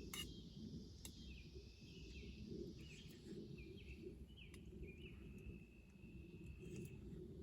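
Faint woodland ambience: a bird calling over and over in short, high, stepped notes above a thin hiss of insects, with a low rumble underneath and a few sharp clicks.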